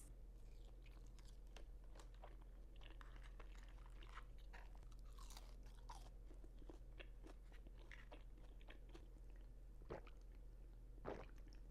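Faint close-miked chewing of crunchy fried fast food: soft crunches and wet mouth clicks scattered throughout, with a couple of sharper crunches near the end.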